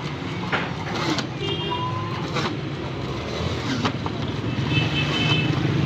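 Busy street traffic: motorcycle and rickshaw engines running, with short high-pitched horn beeps twice, about a second and a half in and again near the end.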